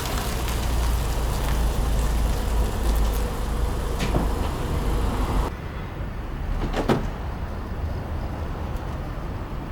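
Car noise that drops sharply about five and a half seconds in, then a single sharp click or knock about a second later.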